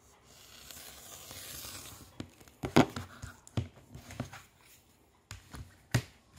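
Rotary cutter blade rolling through a sheet of flat rubber band along a cutting ruler, a steady hiss for about two seconds. Then a string of sharp clicks and knocks as the cutting ruler and the cut strip are handled and set down on the cutting mat.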